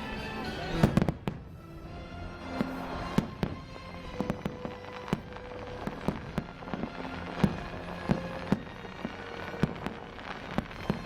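Fireworks exploding in a show, a dense cluster of loud bangs about a second in and then single bangs about every half second, over show music.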